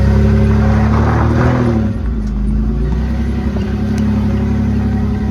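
A motor vehicle's engine running steadily, briefly revving up about a second in and settling again.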